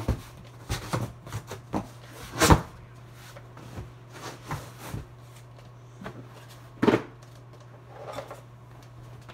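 Household things being handled, moved and set down: a string of knocks, bumps and rustles, the loudest about two and a half seconds in and another near seven seconds.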